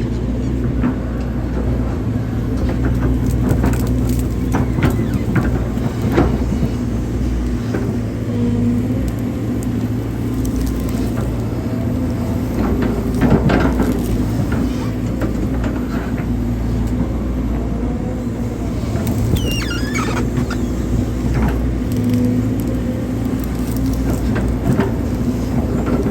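Hydraulic excavator running steadily under work, with scattered knocks from the digging and a few brief squeaks about two-thirds of the way through.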